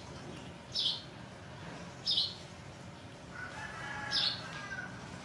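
Short, high chirps repeating about every second and a half, with a rooster crowing once, more faintly, from about three and a half seconds in.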